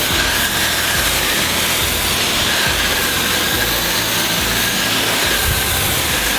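Electric pressure washer running and spraying: a steady hiss of the water jet with a steady whine from the motor and pump.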